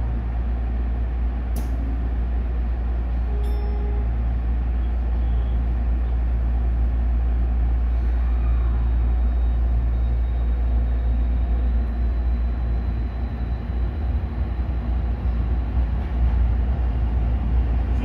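Tokyo Metro 16000-series subway train moving off and picking up speed, heard from the cab: a steady low rumble of motors and wheels on the rails, with a faint high whine that rises slightly in the middle.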